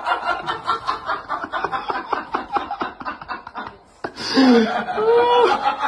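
A person laughing in quick, repeated pulses, then from about four seconds in a high voice calling out with a rising and falling pitch.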